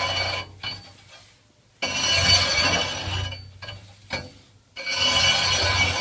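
Steel scraper rod scraping ash off the top of a Crown Royal MP Series outdoor furnace's heat exchanger: metal-on-metal scraping with a ring to it, in long strokes. One stroke fades just after the start, a second starts about two seconds in, and a third about five seconds in.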